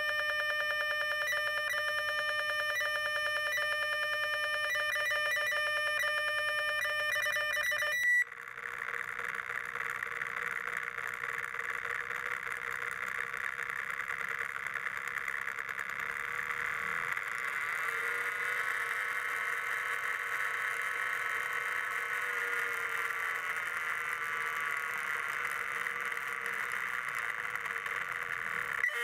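Synthesized electronic tones from an Arduino Uno-driven sound exciter on a bronze sculpture, played with its sliders. For about eight seconds several steady pitches pulse rapidly, then the sound switches suddenly to a rougher, noisier drone whose pitch wavers up and down as the sliders move.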